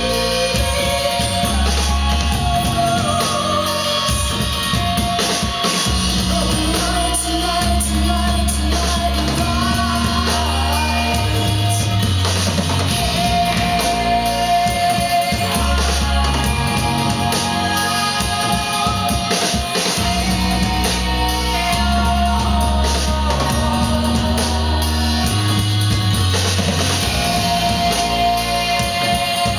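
A song with singing, guitar and drums, with deep held bass notes that change every second or two, played back through Wharfedale Crystal 40 hi-fi loudspeakers.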